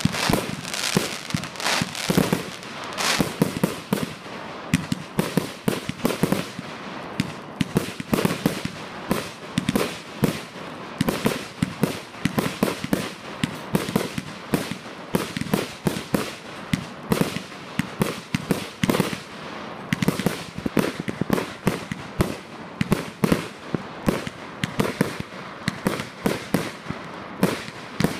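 Professional fireworks display: aerial effects launching and bursting in a rapid, unbroken series of bangs, several a second.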